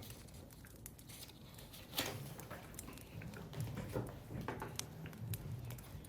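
Scattered light taps and clicks of desk work, like pen and paper handling, with sharper clicks about two seconds and four seconds in, over a low room hum.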